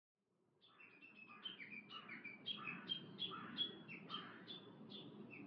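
Birds chirping: a quick run of short, repeated chirps, several a second, over a low steady background noise, fading in shortly after a moment of silence.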